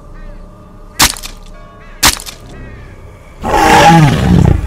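Two sharp cracks about a second apart, then a loud dinosaur roar sound effect from a cartoon Tyrannosaurus rex, sliding down in pitch, starting about three and a half seconds in.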